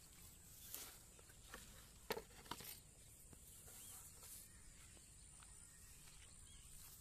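Near silence with faint outdoor ambience, broken by a few soft rustles and knocks in the first three seconds as someone moves through wet grass.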